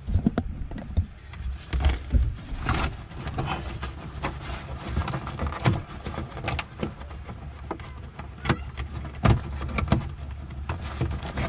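Corrugated plastic blower hose being pushed and worked up through a hole in a boat's engine compartment: irregular scraping and rustling with frequent small knocks, over a steady low hum.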